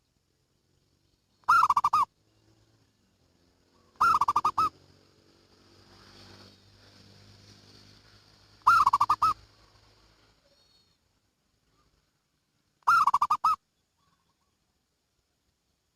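Zebra dove (perkutut) cooing: four short, rapid rolling coos, each about half a second long, spaced a few seconds apart. A faint hum and hiss sit underneath in the middle of the stretch.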